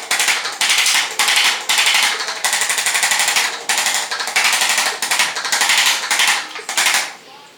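Chiropractor's handheld percussion massage tool buzzing against the back muscles in repeated bursts of about half a second with short breaks between them. It stops shortly before the end.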